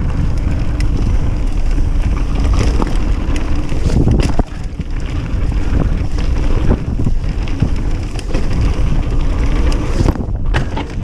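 Wind buffeting the camera's microphone and mountain-bike tyres rumbling over a rough dirt trail at speed, with the bike rattling and knocking over bumps; one sharper knock about four seconds in.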